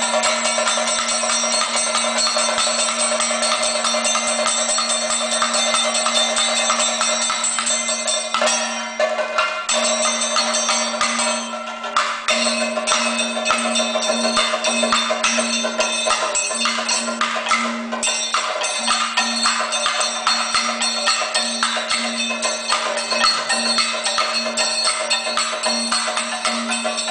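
Kathakali percussion accompaniment for a character's thiranokku (curtain-look): a chenda drum beaten fast with sticks over ringing metallic tones and a steady low drone. The playing thins briefly about eight seconds in and again about eleven seconds in, then resumes at full density.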